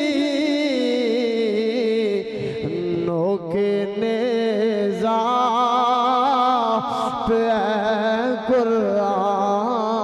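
Singing of a naat, an Urdu devotional poem: a voice drawing out long, wavering, ornamented notes on a line of the verse.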